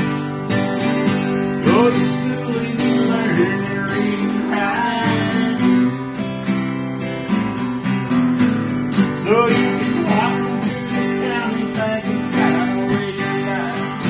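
Two acoustic guitars played together: one strummed steadily in chords, the other playing a melody over it with sliding, bent notes.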